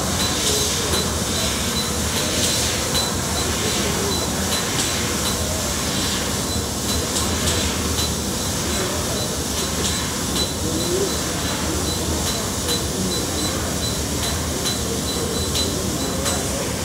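Industrial laser cutter cutting sheet metal: a steady hiss and rumble from the machine, with a thin high whine over it.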